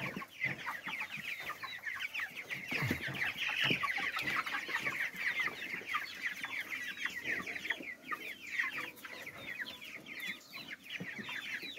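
A flock of four-week-old broiler chicks peeping constantly, a dense overlapping chorus of short, high, falling cheeps as they crowd round and feed.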